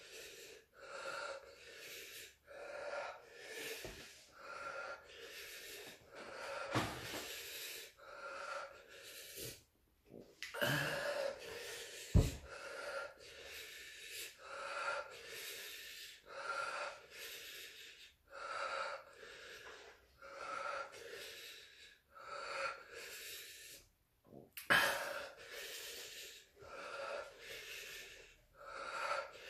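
A man panting hard through an open mouth, rough wheezing breaths in and out about once a second, from the capsaicin burn of eating hot chili peppers. About twelve seconds in, a single short thump.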